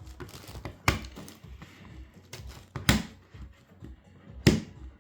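Plastic 11x11x11 Rubik's cube being twisted by hand: a run of small clicks from the turning layers, with three sharp, louder clacks about one, three and four and a half seconds in.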